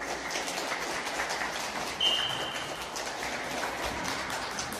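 Spectators clapping, a dense patter of many hands. About two seconds in comes a short, shrill whistle blast.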